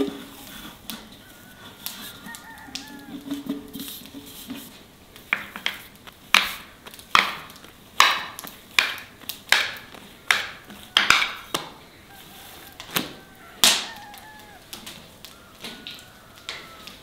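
A metal dough scraper chopping a roll of bread dough into portions, giving a run of sharp knocks on the stone countertop, roughly one or two a second, starting about five seconds in and stopping near the end. Birds call faintly in the background.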